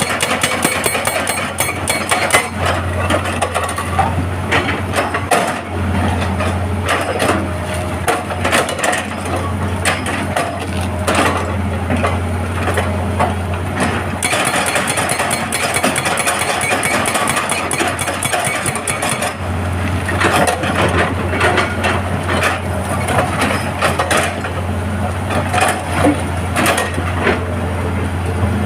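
Excavator working broken rock: dense, irregular cracking, knocking and clattering of stone under a steady diesel engine hum, which drops away for a few seconds mid-way.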